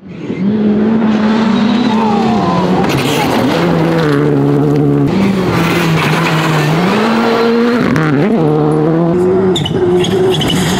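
Rally cars driven hard through gravel corners: engines run near full throttle, their pitch stepping up and down with gear changes, over the rush of tyres spraying gravel. The sound fades in at the start and changes abruptly a few times as it cuts from one car to the next.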